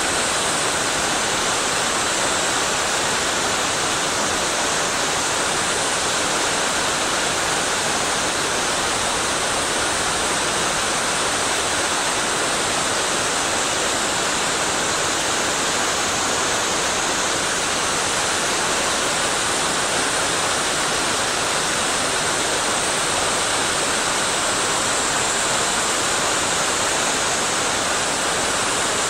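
Steady rush of fast-flowing water in a mountain stream, an even hiss that does not change.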